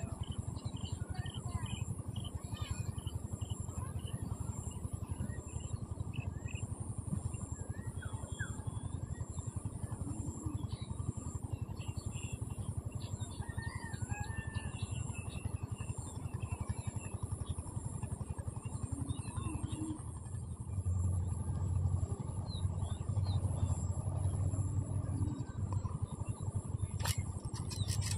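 Outdoor ambience of birds calling, scattered short chirps over a steady noise that grows louder about two-thirds of the way through.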